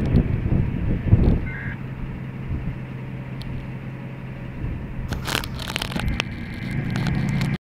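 Freight train rumbling past, dropping away about a second and a half in to a steady low hum under a noisy haze. A few crackling knocks come near the end.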